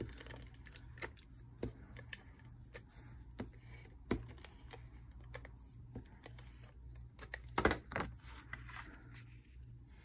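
Handheld tape runner laying adhesive along the edges of a cardstock panel: faint, scattered clicks and crackles with paper rustling, and a short louder cluster of clicks a little before the end.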